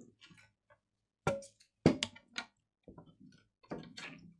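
Multimeter probe tips tapping against the fuses on a PS5 motherboard during continuity checks: a few sharp clicks, three stronger ones near the middle, with fainter ticks between.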